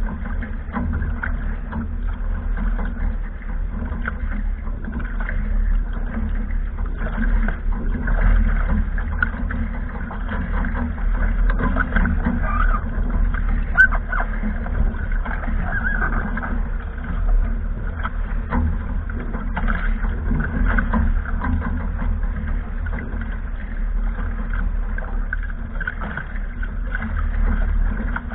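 Wind rumbling steadily on the microphone while water splashes and rushes against the hull of a small sailing catamaran under way through choppy sea.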